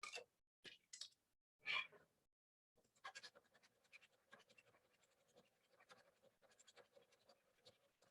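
Faint, irregular scratching of wet 150-grit sandpaper rubbed in small circles over a 3D-printed plastic part, with the loudest stroke about two seconds in.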